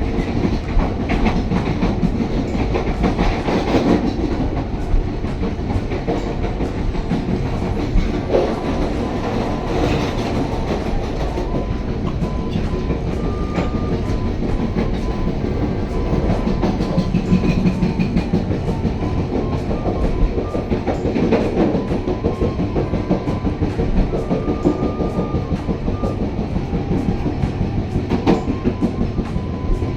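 Pasundan passenger train running along the track: a steady rumble with the rapid clicking of wheels over the rails.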